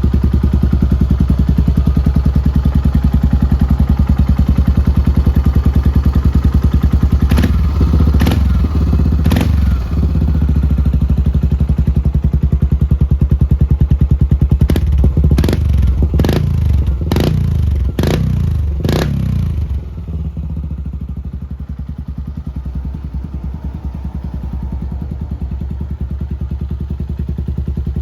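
Yamaha SR400 single-cylinder engine through a loud megaphone exhaust, idling with a steady thumping beat. About a quarter of the way in it is blipped three times, then six more quick blips follow around the middle, after which it settles back to a quieter idle.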